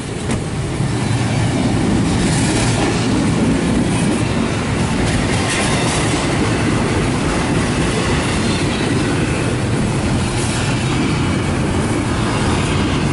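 Intermodal freight train passing close by: its container-carrying well cars roll steadily over the rails, with a constant noise of wheels on track.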